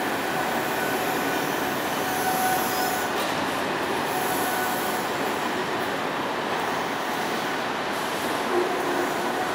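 Railway passenger coaches running past along a station platform: a steady rolling noise of wheels on rail, with a faint thin wheel squeal over the first few seconds.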